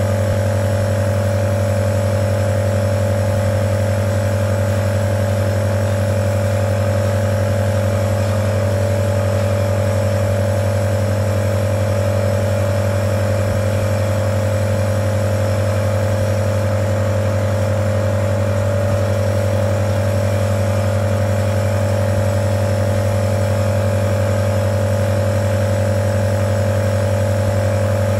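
Omron NE-C28 compressor nebulizer running, its compressor giving a steady, unchanging hum.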